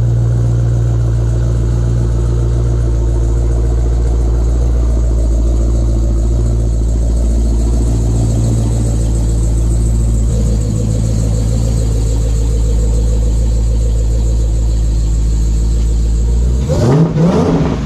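Dodge Hellcat's supercharged 6.2-litre HEMI V8 running at a steady idle, with a short rev near the end.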